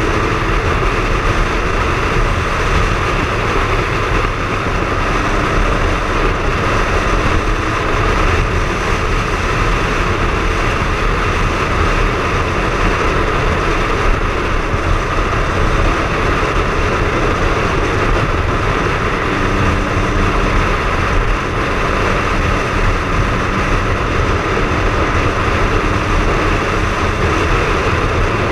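Triumph Speed Triple's three-cylinder engine running steadily while riding, under a steady rushing noise; the faint engine note shifts slightly about twenty seconds in.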